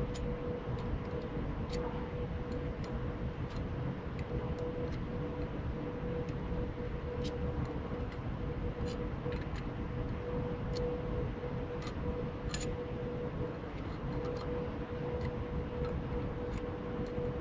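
Light metallic clicks of a wrench on the thickness planer's cutterhead bolts as the knives are changed, scattered irregularly, over a steady workshop drone with a constant hum.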